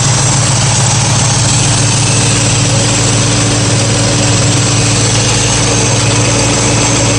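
1965 Ford Mustang engine idling steadily at operating temperature, running evenly without missing, with the new electric radiator fan running. A steady low rumble with a constant hum over it.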